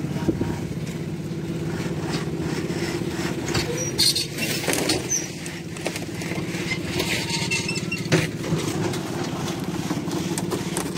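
Concrete mixer's engine running steadily, with scraping and knocking of tools and a loaded wheelbarrow on the wet concrete of a roof slab being cast.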